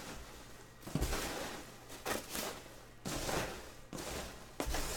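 Hands digging through polystyrene packing peanuts in a cardboard box: dry rustling and crackling in four or five bursts about a second apart.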